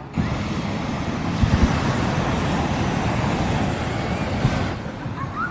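Hot air balloon propane burner firing, a steady rushing roar that starts abruptly and cuts off after about five seconds, lighting the envelope for the glow.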